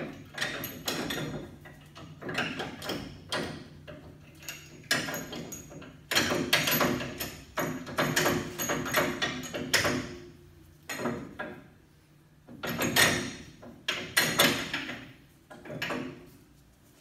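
Irregular metallic clanking and scraping of hand tools and suspension parts as a mechanic works in the front wheel well on a 1977 Dodge van's coil-spring front suspension, busiest through the middle, with short pauses.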